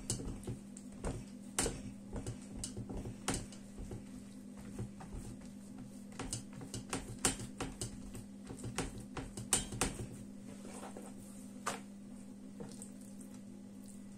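Hands patting, pressing and stretching thin buttered dough sheets on a tabletop: irregular light taps and slaps, busiest in the first ten seconds and sparser after. A steady low hum runs underneath.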